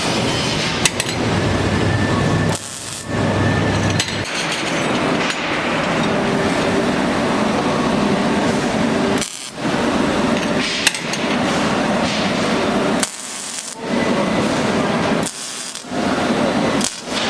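Metalworking power tool running on steel, heard as a loud, steady, noisy sound in several short clips, each cut off abruptly, with a few sharp clicks.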